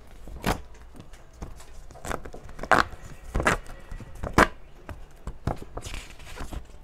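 A paper PIN mailer being torn open by hand, its perforated side strips ripped off, with irregular crackles and several short, sharp rips, the loudest between about two and a half and four and a half seconds in.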